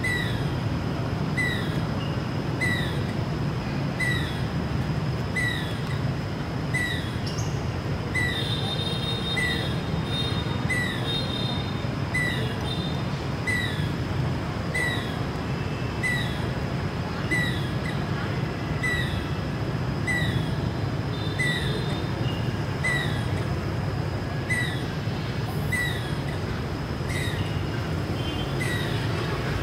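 A bird repeating a short, falling chirp over and over, about every 0.7 seconds, over a steady low background rumble. A second bird chatters briefly about eight seconds in.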